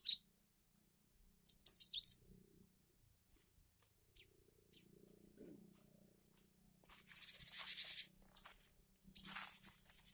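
Short, high, sharp chirps of a cinereous tit (gelatik batu) in the first two seconds. Later, two longer stretches of scratchy rustling noise.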